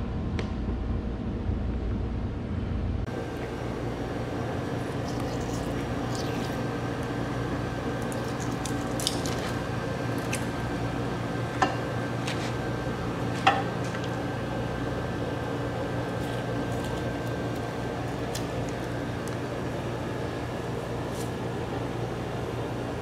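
Steady machine hum of a kitchen, with faint scattered knocks and rustles. About halfway through come two sharp clinks, about two seconds apart.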